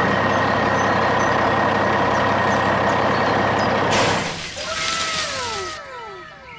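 Truck sound effect: a heavy engine running steadily, then about four seconds in a loud air-brake hiss, with several falling whistling tones as the sound dies away.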